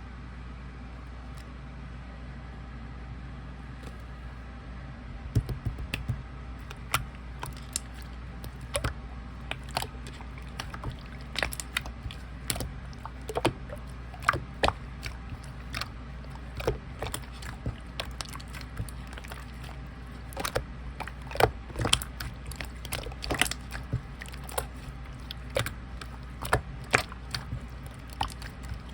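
Clear slime being squished and pressed by hand, giving irregular sharp wet clicks and pops from about five seconds in, over a steady low hum.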